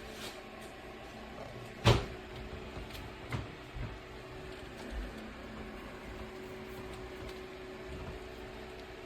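Airbition 8-inch electric fan running with a steady motor hum. A sharp click comes about two seconds in, followed by a few lighter knocks.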